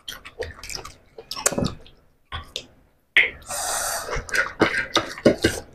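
Close-up mouth sounds of eating juicy pomelo segments: a string of wet smacks and clicks, with one longer hiss lasting nearly a second about three seconds in.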